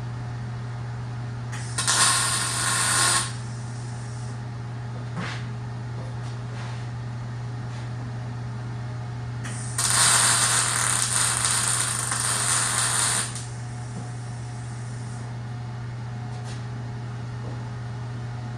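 Electric welder tack-welding steel tube bracing: two bursts of crackling arc noise, a short one about two seconds in and a longer one of about three and a half seconds near the middle, over a steady low hum.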